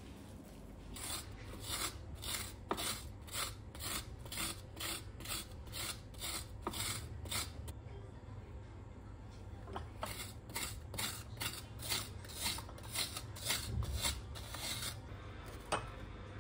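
Wooden spoon scraping frozen homemade strawberry ice cream in a metal loaf tin, rasping in quick repeated strokes, a little over two a second, with a pause of about two seconds midway.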